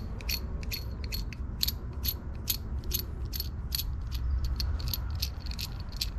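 A steel nut being spun by hand along the threads of a 10 mm bolt: a run of small, sharp metallic clicks, irregular, a few each second.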